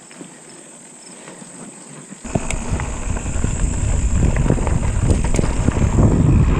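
Mountain bike on a dirt trail: light tyre and rattle noise, then about two seconds in, loud wind buffeting of the microphone suddenly comes in and carries on, with scattered clicks and knocks from the bike.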